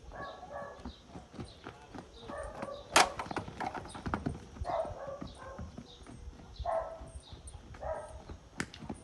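Hoofbeats of a horse cantering on a sand arena, a steady run of soft strides, with one sharp crack about three seconds in.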